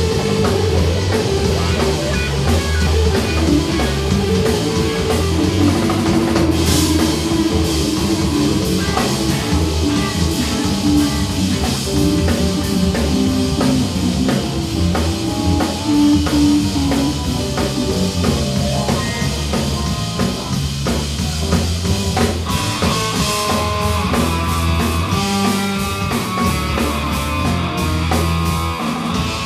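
Live rock band playing: drum kit, electric bass, electric guitar and keyboards. About two-thirds of the way through the cymbals get busier and a clearer melodic line comes in over the groove.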